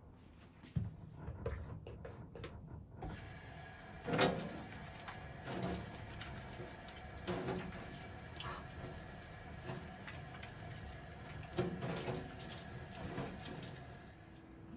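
Water running from a kitchen tap into a stainless steel sink while hands are washed under the stream, splashing now and then. A few knocks come first, and the water starts about three seconds in.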